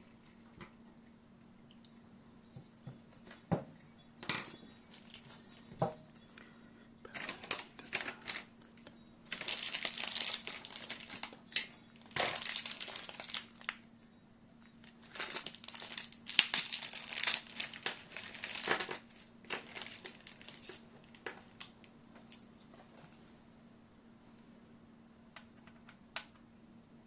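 Packaging crinkling and rustling as it is handled, in several bursts through the middle, with scattered clicks and light knocks before and after.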